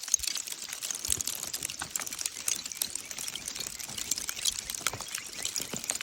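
Hailstones striking slate rock: a dense, irregular run of sharp clicks over a steady hiss.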